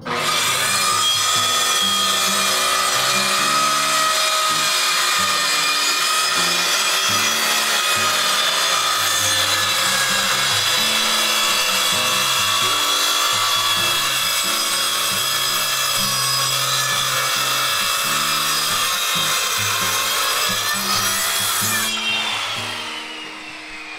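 Corded circular saw running and cutting through a wooden bench top, a loud, steady whine over the noise of the cut. About 22 seconds in the motor is switched off, and the whine falls steadily in pitch as the blade spins down.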